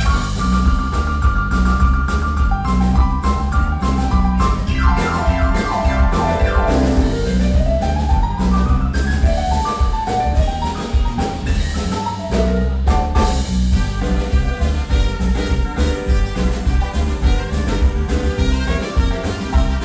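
Instrumental break of a pop song: a steady beat under a melody line, with a sweeping glide down and back up partway through.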